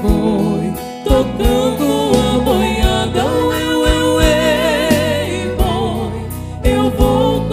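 Two female voices singing a Brazilian sertanejo song in harmony, holding notes with vibrato, backed by a live band of drums, bass, guitar, accordion and keyboard with a steady beat.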